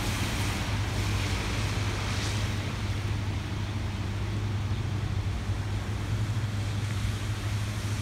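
Storm wind on the microphone: a steady low rumble under an even hiss, with passing traffic on the wet road mixed in.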